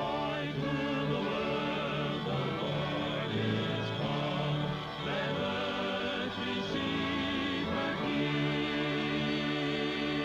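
Music with a choir singing, the voices holding notes with vibrato over steady sustained accompaniment.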